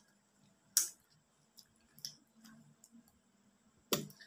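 Wet mouth and lip smacks while chewing ripe mango: a few sharp clicks, the loudest about a second in, others near two seconds and just before the end.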